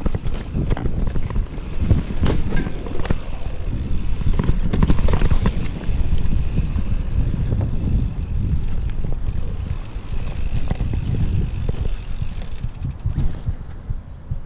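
Mountain bike descending a dirt trail, heard from a camera on the rider: wind buffeting the microphone over a steady low rumble of tyres on the ground, with frequent sharp knocks and rattles from the bike over bumps.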